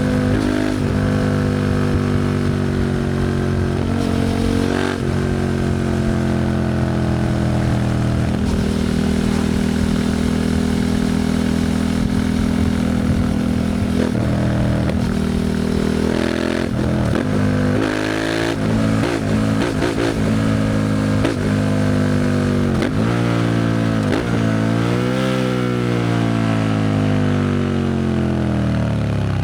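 Suzuki SV650's V-twin engine through a Leo Vince exhaust while riding: a long, steady pull whose pitch sinks slowly, then a run of quick revs up and down about halfway through, another rise and fall near the end, and the pitch dropping as the bike slows at the close.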